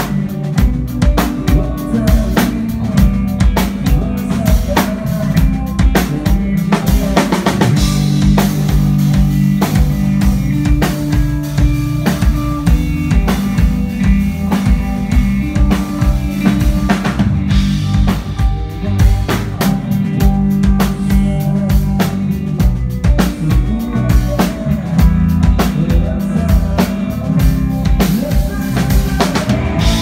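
A rock band playing live at a sound check, with the drum kit loudest: a steady beat of kick drum, snare and rimshot hits. Electric guitar and bass sustain notes underneath.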